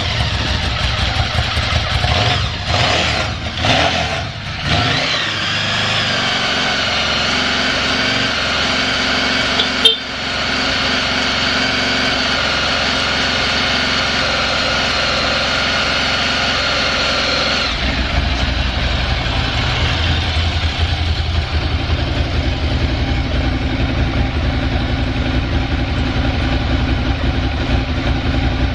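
Ducati Monster 1100 EVO's air-cooled L-twin engine running after a first-try start. It is uneven for the first few seconds, then settles into a steady idle that the seller calls stable with no abnormal noise. A sharp click comes about ten seconds in, and near two-thirds of the way through the sound turns to a heavier, deeper rumble.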